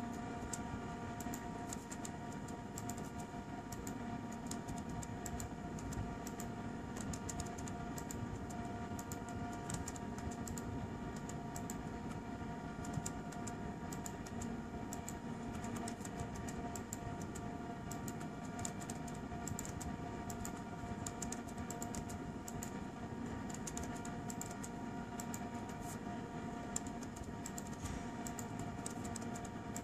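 Laptop keyboard typing: a steady stream of quick key clicks as commands are entered, over a steady hum with several fixed tones.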